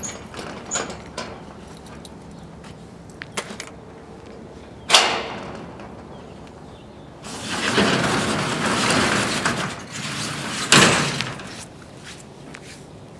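Corrugated steel roll-up door of a storage unit: a few small clicks at its lock, then a sharp clank about five seconds in. Later comes a noisy rush lasting about three seconds as the door is rolled up, ending in a loud bang as it reaches the top.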